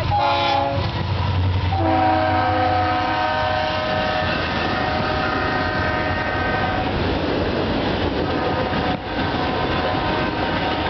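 Norfolk Southern diesel locomotive's air horn sounding a chord of several notes: a brief blast at the start, then a longer one from about two seconds in to about seven seconds. Under and after the horn, the steady rumble and wheel noise of the train rolling by.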